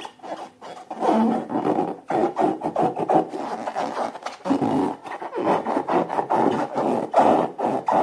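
Slime being worked and squished, a dense run of sticky rubbing and crackling with many small clicks, starting about a second in.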